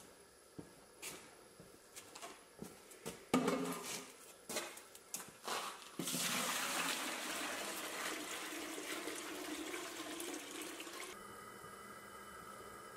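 Knocks and clunks, one much louder thump a little after three seconds, as the enamelled canning pot is set onto the propane burner stand. Then water is poured from a plastic bucket into the pot, a steady splashing pour for about five seconds that stops abruptly.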